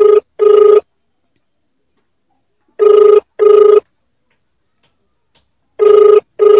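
Telephone ringback tone of an outgoing call: a steady double ring, two short pulses, repeating every three seconds, three times here. The call is ringing unanswered.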